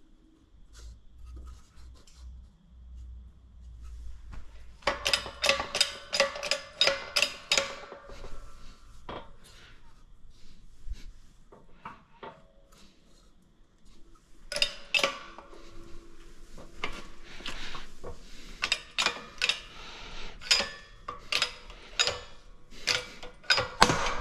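Hammer striking a steel bearing driver to drive a pulley bearing, metallic taps with a short ring, about three a second, in one run of strikes and then a longer one after a pause.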